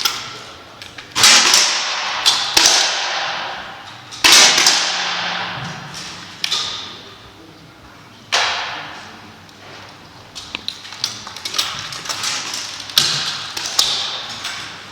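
Target air rifles being fired by several shooters: sharp shots every few seconds, each followed by a long echoing decay, with lighter clicks of other shots and rifle actions in between.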